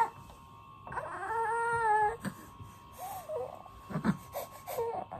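A nine-week-old baby whining as it is laid down in its cot: one drawn-out cry about a second in, then short whimpers, with a soft knock about four seconds in.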